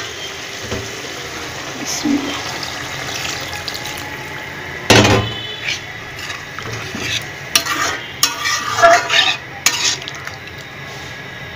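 Metal spatula stirring and scraping chicken curry in a wok-shaped pan as water goes in over the hot masala, with a steady sizzle underneath. A loud sudden hit about five seconds in, then a run of quick scrapes and knocks against the pan near the end.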